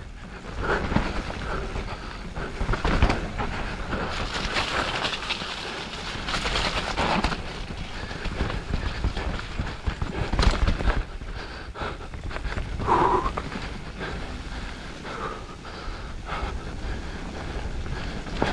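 Mountain bike ridden fast down a rough enduro trail: steady tyre noise on dirt and rock, broken by irregular knocks and rattles from the bike, with the rider breathing hard.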